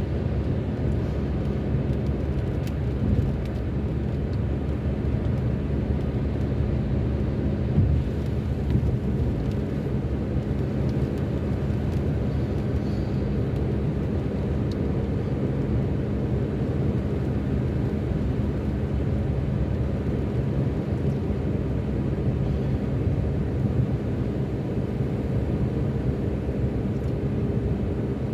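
Steady low rumble of a car driving on the road, engine and tyre noise heard from inside the car, with a couple of small knocks from bumps.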